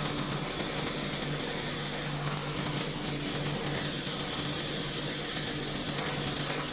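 Pressure washer running, a steady hiss of spraying water over a faint low hum from the machine.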